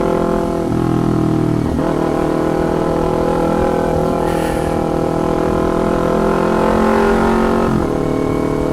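A 2019 Kawasaki Ninja 250's parallel-twin engine running under way through a loud aftermarket can-type exhaust. Its pitch dips and recovers about a second in and again near the end.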